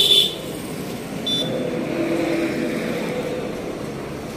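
Bajaj CNG auto-rickshaw's 225 cc single-cylinder four-stroke engine running at idle, a steady hum. A short, sharp, high-pitched sound comes at the start and a fainter one about a second later.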